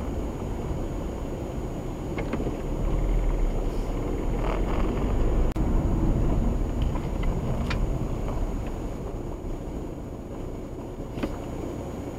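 Car driving, heard from inside the cabin: a steady low rumble of road and engine noise that grows louder through the middle and eases off near the end as the car slows to a stop, with a few faint clicks.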